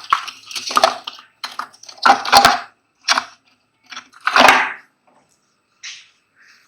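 Irregular scrapes and knocks of workshop handling, about eight short bursts, the loudest about two and four and a half seconds in.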